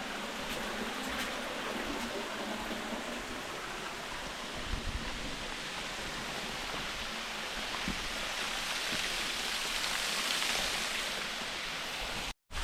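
A waterfall rushing steadily, a constant hiss of falling water, cutting out for a moment near the end.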